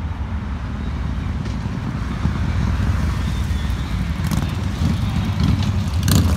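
Cruiser motorcycles riding past on a highway, their engines running deep and low amid road traffic. The sound grows louder from about two seconds in and is loudest near the end.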